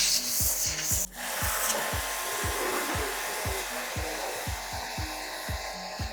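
Steady hissing spray of a portable high-pressure car washer jetting foam and water, under background music with a steady beat. The hiss drops out briefly about a second in, then goes on at a lower level.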